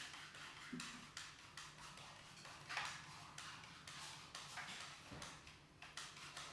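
Hands rubbing and scratching through hair on the scalp during a head massage: short hissy strokes repeating about two to three times a second.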